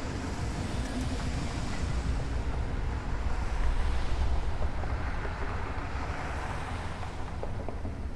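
Car interior ambience: a steady low rumble of road and engine noise with a hiss of wind, heard from inside the cabin of a moving car. It swells a little about four seconds in.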